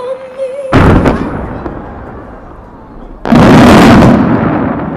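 Aerial firework shells bursting: a sharp boom under a second in that dies away over about two seconds, then a bigger, longer burst a little after three seconds, fading toward the end.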